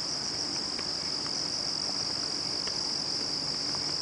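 Steady high-pitched chorus of crickets trilling without a break, with a few faint clicks.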